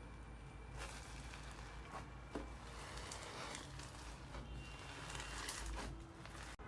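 Slime being squeezed and pressed by hand: faint, soft squishing with scattered small clicks and crackles.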